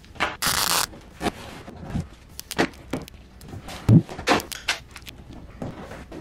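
Duct tape ripped off the roll in one burst about half a second in, then scattered knocks and rubbing as the tape is pressed down and the cardboard wing is handled, with one louder thump of cardboard near four seconds in.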